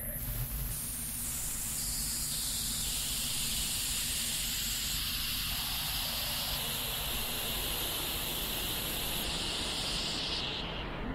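Steady hissing noise over a low rumble. The upper part of the hiss shifts in abrupt steps and cuts off shortly before the end.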